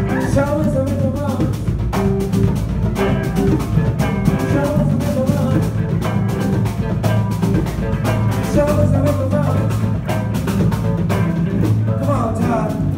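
Live band jamming: electric guitar and bass guitar over a drum kit, with a steady beat and a sustained bass line throughout.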